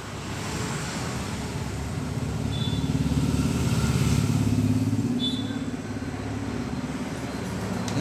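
Engine of a passing motor vehicle, a steady low hum that grows louder to about halfway and then fades away.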